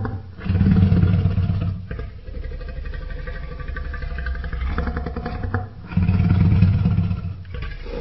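Sound-designed Carcharodontosaurus vocalization: a deep, pulsing growl that swells twice into louder low bellows, each about a second and a half long and a few seconds apart.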